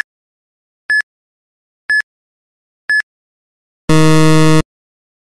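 Quiz countdown timer sound effect: four short, high electronic beeps, one a second, then a brief low buzzer at about four seconds signalling time out.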